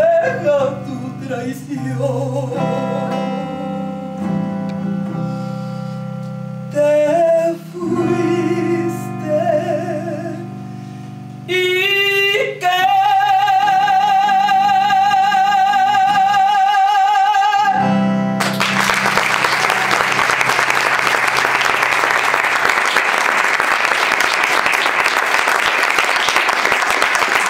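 A woman sings the closing phrases of a song over archtop guitar accompaniment, ending on a long held note with wide vibrato. About two-thirds of the way through, the note ends and an audience breaks into applause.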